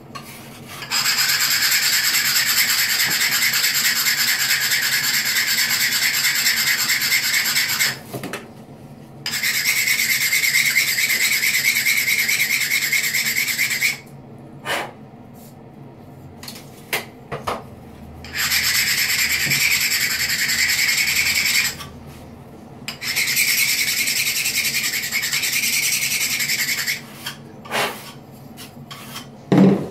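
Edge of a cut ceramic tile rubbed back and forth against an abrasive stone block by hand to round and dull it: a steady gritty scraping in four long passes, with short pauses and light knocks between them.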